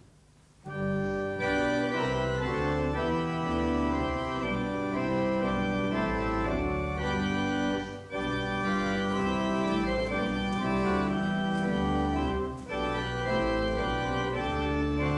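Church organ playing a hymn tune in sustained chords, starting just under a second in, with brief breaks between phrases about 8 and 12.5 seconds in.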